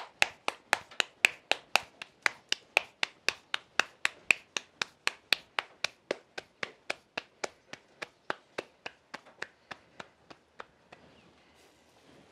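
Hands patting a ball of corn masa flat into a tortilla by hand, a steady slapping about four times a second that stops about a second and a half before the end.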